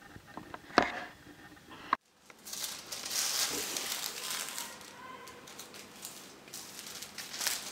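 Sheets of butter paper and foil wrapping paper rustling and crinkling as they are lifted and laid out on a table, after a couple of faint clicks at the start.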